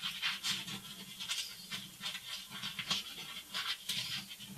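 Sheet of paper rustling and crinkling in short, irregular crackles as hands fold it into a box and press the folds down.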